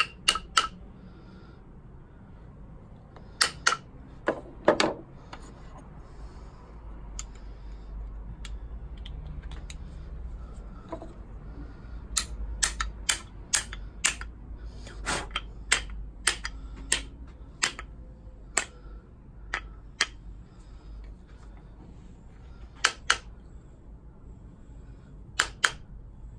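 Small hammer tapping a wooden hand plane to set its blade: sharp knocks, often in quick pairs, coming in irregular clusters. There is a quiet pause of several seconds early on, then a run of about a dozen taps, then a few more pairs near the end.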